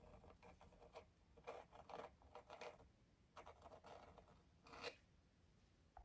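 Faint scratching of a craft knife blade drawn through a thin sheet of raw polymer clay, in two short spells of strokes as it cuts around a shape.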